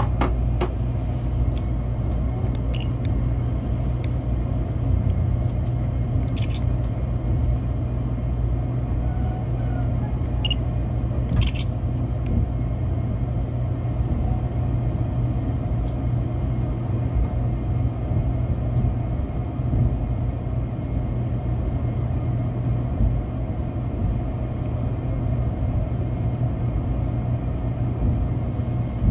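Steady low running rumble heard inside a Tokaido Shinkansen car rolling slowly through a depot, with a few short high-pitched ticks in the first half.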